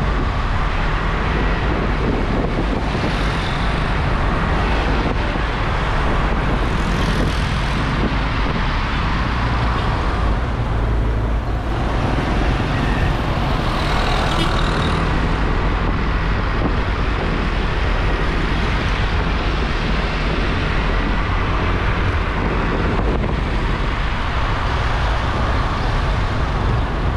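Motorbike riding through town traffic: its engine runs steadily under a heavy rush of road and wind noise, with other motorbikes and cars around it.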